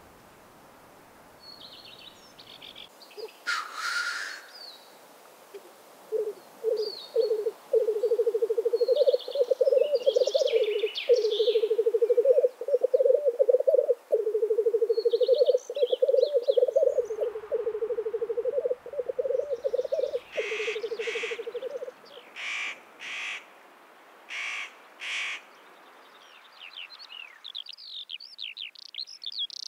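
Male black grouse lekking: a long bubbling, cooing song that begins about six seconds in and stops about twenty-two seconds in, with a loud hissing call before it and a run of six short hisses after it. Small songbirds chirp high above.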